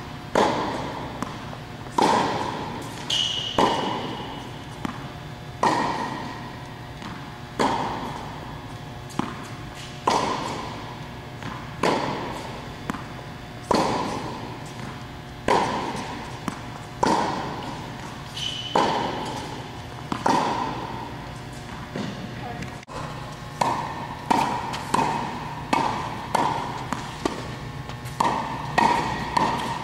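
Tennis ball struck by rackets in a rally: sharp hits about every two seconds, each ringing out with echo. Past the middle the hits come faster, about one a second.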